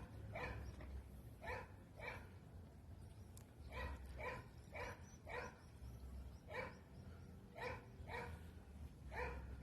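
A dog barking repeatedly and faintly, about fifteen short barks coming in bunches of two to five.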